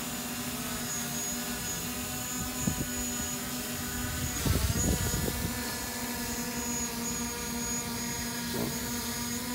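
DJI Mavic Pro quadcopter, carrying an add-on thermal camera gimbal, hovering: its propellers give a steady buzzing hum. Wind gusts rumble on the microphone about four and a half seconds in.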